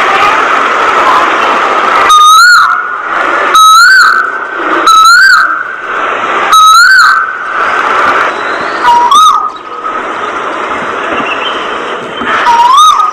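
Six loud, short whistled notes, each rising and then falling in pitch, spaced one to three seconds apart over a steady background of chattering birds.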